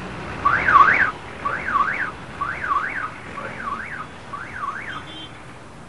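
An electronic alarm-like warbling tone, each call sweeping up and down twice, repeated five times about a second apart and growing fainter.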